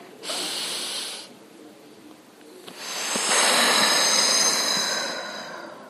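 A woman breathing during a seated forward stretch: a short breath in through the nose, then a longer, louder breath out through the mouth as she leans forward.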